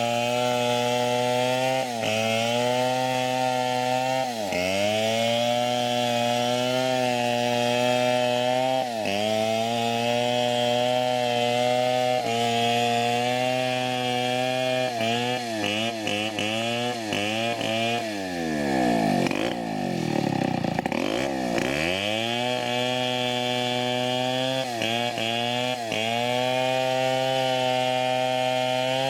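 Large Stihl chainsaw ripping old teak lengthwise at full revs, its pitch dipping briefly every few seconds as the chain loads up in the cut. Past the middle, the revs fall almost to idle and climb back to full over a few seconds.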